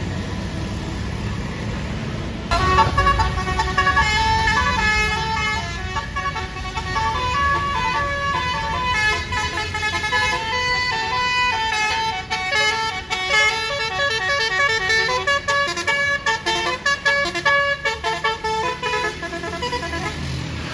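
Basuri telolet horn on a bus: a set of multi-tone air horns playing a quick tune of short, stepping notes. It starts abruptly about two and a half seconds in, over the low running of the bus engine.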